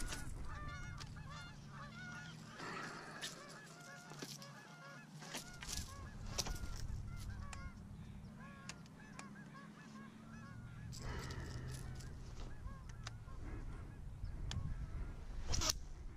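A large flock of geese honking, many short calls overlapping without a break. A low rumble comes in about five seconds in, with scattered sharp clicks over it.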